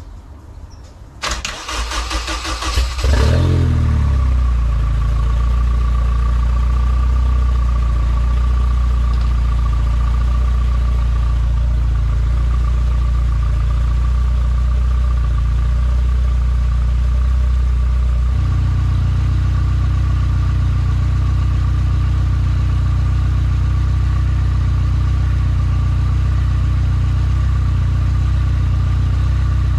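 Honda K20 four-cylinder engine turned over by the starter for about two seconds, catching about three seconds in and then idling steadily, with a thin steady whine alongside. About eighteen seconds in, the idle sound changes abruptly, becoming fuller and less even.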